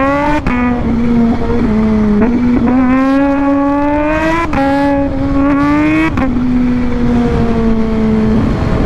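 Sport motorcycle engine under way. Its pitch climbs as it pulls and drops back several times with the throttle or gear changes, over steady wind and road rumble.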